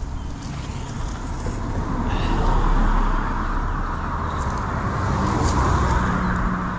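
Road traffic: a car passing, its tyre and engine noise swelling to a peak about three seconds in and rising again near the end.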